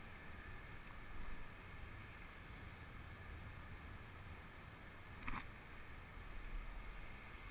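Faint steady outdoor background: a low rumble and a light hiss, with one brief sharp sound about five seconds in.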